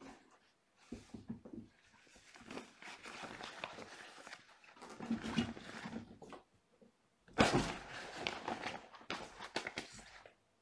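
Kittens running and playing on a carpeted floor: irregular scuffling, scrabbling and soft thumps, with a louder scramble about seven seconds in.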